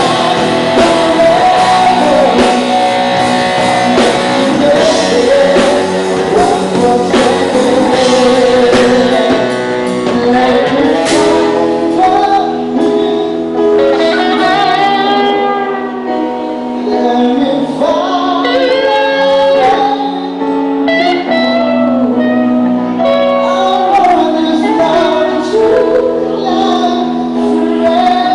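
Live rock band playing loudly in a large room: sung vocals over guitar and drum kit. The drums hit hard through the first ten seconds or so, then ease off, leaving the singing over held guitar chords.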